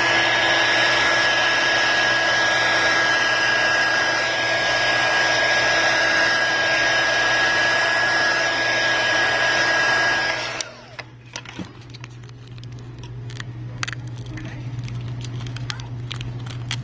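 Heat gun blowing hot air onto a cracked phone screen's glass, a steady rush with a thin steady whistle. It cuts off about two-thirds of the way through. Faint clicks and scratches of a tool picking at the broken glass follow over a low hum.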